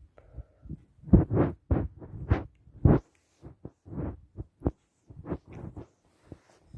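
A cat sneezing in a quick run of short, sharp sneezes, a dozen or so bursts, the loudest coming between about one and three seconds in.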